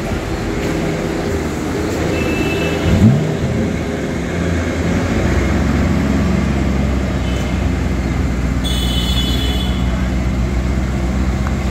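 Street traffic with car engines running. About three seconds in there is a brief upward rev, the loudest moment, and from about five seconds on an engine drones steadily. A short high-pitched tone sounds near the end.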